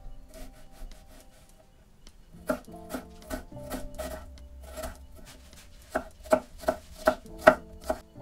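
Knife chopping on a cutting board: scattered strokes at first, then a quicker steady run of about three chops a second near the end.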